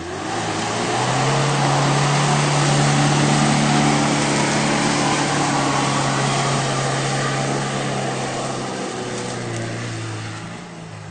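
Mitsubishi Pajero 2's engine under heavy throttle as the SUV pulls through deep mud, with tyres churning the mud. The engine note rises about a second in, holds high, then eases off near the end.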